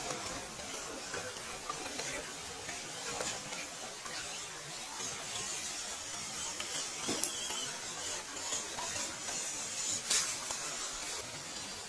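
Steady rush of a shallow stream flowing over stones, with a few sharp clicks about seven and ten seconds in.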